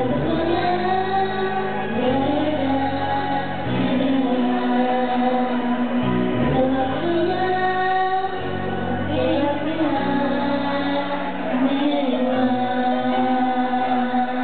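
A group of young girls singing a song together into microphones, over low sustained accompaniment chords that change every second or two.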